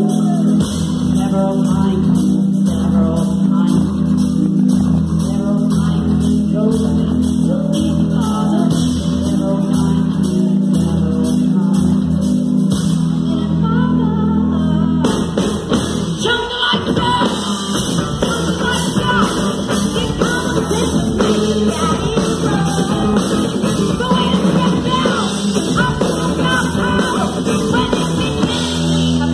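A live rock band playing a song: drum kit, electric guitars and keyboards, with a woman singing. The band gets fuller and denser about halfway through.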